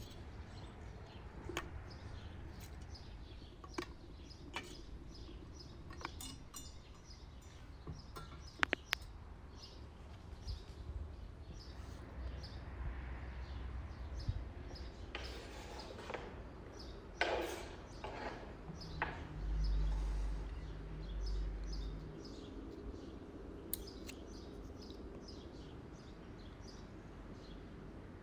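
Outdoor ambience with birds chirping and scattered short clicks and knocks, with a few louder rustling swells and a brief low rumble past the middle.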